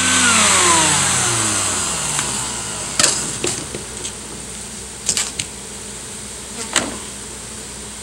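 Bee vacuum motor winding down after being switched off, its whine falling in pitch over about two seconds. Then come a few sharp clicks and clunks as the motor head is handled and lifted off the catch box, over a steady buzzing hiss of bees.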